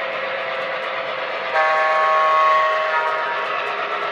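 Digital sound system of an MTH O gauge model diesel locomotive playing a diesel air horn through its small speaker: a steady multi-note chord that swells louder about one and a half seconds in and eases back about a second and a half later.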